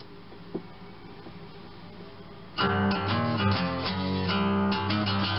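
Quiet room tone, then about two and a half seconds in a guitar starts loudly into a fast passage of quickly changing notes.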